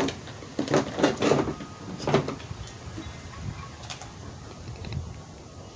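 Scattered clicks and light knocks as an exterior door handle is worked out of a truck door, plastic and metal parts tapping against the door.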